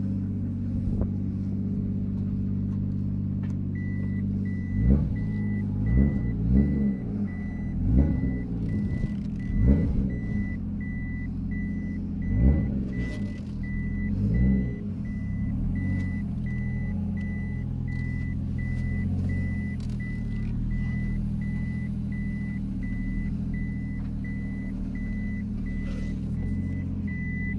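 Toyota Chaser Tourer V's 1JZ-GTE turbocharged straight-six idling, heard from inside the cabin, with a run of short throttle blips between about five and fifteen seconds in. A high electronic beep repeats steadily, a little more than once a second, from a few seconds in.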